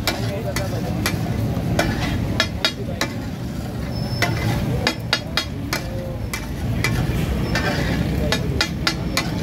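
Metal spatula clinking and scraping against a griddle in quick, irregular strikes while kababs fry and sizzle.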